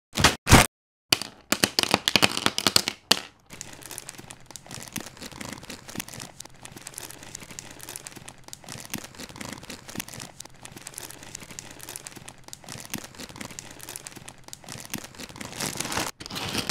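Dry Sanremo Vegeroni tricolour fusilli clattering and rattling as hands push and slide the pieces across a hard tabletop. Several louder bursts come in the first three seconds, then a steady light patter of small clicks that grows louder near the end.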